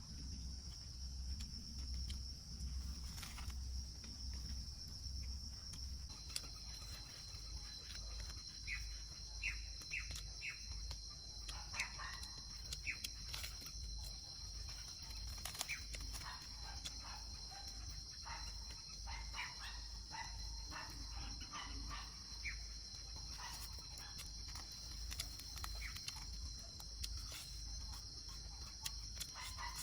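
Rainforest ambience: a steady high insect drone, with a second thin, even insect tone joining about six seconds in, and scattered short chirping animal calls over it.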